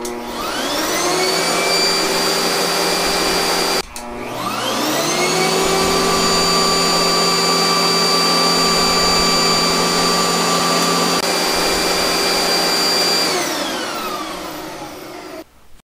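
12-amp upright vacuum cleaner motor spinning up with a rising whine and running steadily, powered through a 24-volt power inverter that shows about 1300 watts of load. It cuts out abruptly about four seconds in, spins up again, and near the end winds down with a falling whine as it is switched off.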